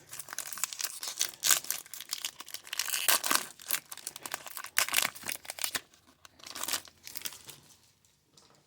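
Foil wrapper of a trading-card pack crinkling and tearing as it is handled and opened by hand, a dense run of irregular crackles that tails off near the end.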